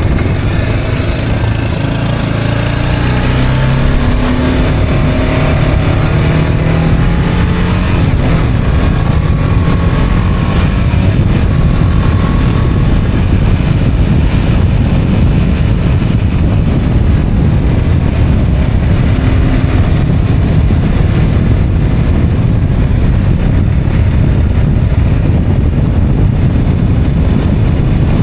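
Motorcycle engine pulling up through the revs for the first several seconds, then a steady rush of wind on the microphone as the bike rides along at speed.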